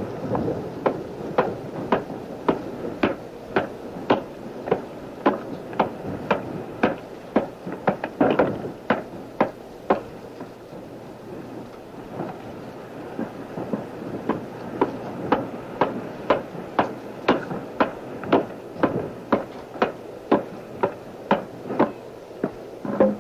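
Hand adze hewing driftwood: a steady run of sharp chopping strokes, about two a second, with a short lull about ten seconds in.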